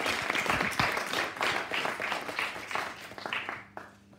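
Small audience applauding at the end of a poem, the clapping thinning and dying away near the end.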